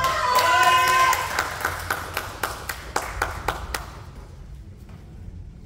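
A kendo fencer's high-pitched kiai shout, ending about a second in, followed by scattered clapping for a scored point that thins out and stops at about four seconds.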